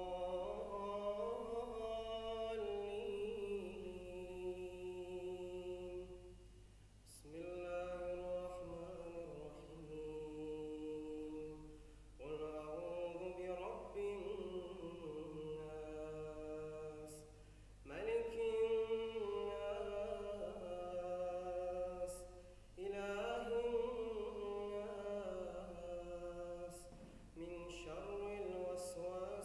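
A male reciter chanting the Quran in a melodic style, holding long, ornamented notes. His phrases last four to six seconds, each followed by a short pause for breath.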